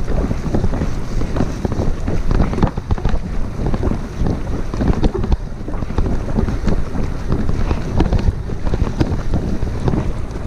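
Wind buffeting an action camera's microphone over the rumble of a Specialized Diverge gravel bike's tyres on a rough dirt track, with irregular knocks and rattles as the bike hits bumps.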